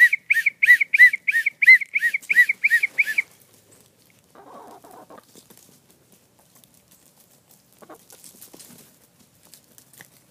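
A rapid series of about a dozen short, arching whistle notes over the first three seconds, a call to bring chickens in for a treat. After it come faint clucks and rustling from the chickens.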